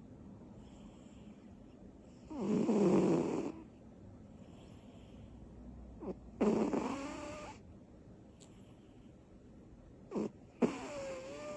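A small cat snoring loudly in its sleep: three rasping snores about four seconds apart, the last with a whistling tone in it.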